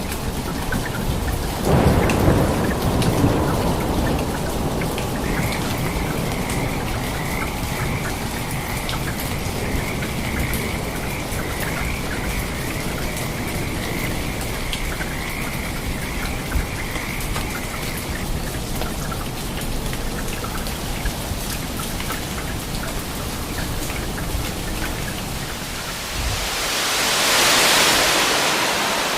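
Steady rain falling, with a roll of thunder about two seconds in. A thin, steady high note runs through the middle, and near the end a hissing swell rises and fades.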